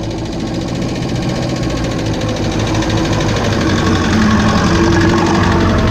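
A 1950 Land Rover Series 1's four-cylinder petrol engine running at low speed as it drives slowly through mud, getting louder as it comes up to and passes over.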